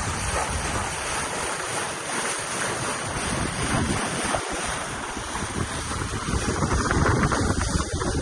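Steady wind buffeting the microphone aboard a sailboat under way, with waves and water rushing in the background.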